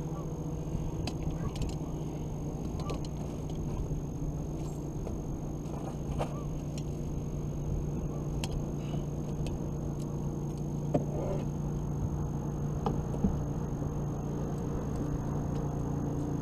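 Boat's outboard motor running steadily at low speed, with a few light clicks and knocks scattered through.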